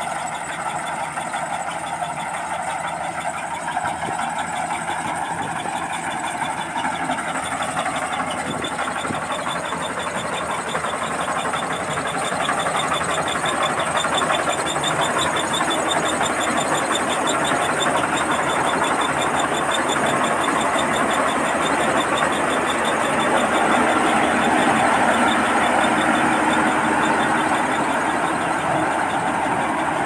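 Rice combine harvester running while it cuts standing rice: a steady engine and machinery din with a fast, even ticking, growing louder about twelve seconds in.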